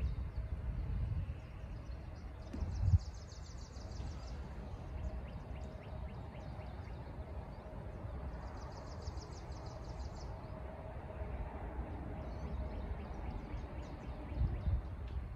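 A small songbird's high, fast trill, heard three times, each about a second and a half long, over a steady low rumble and a faint steady hum.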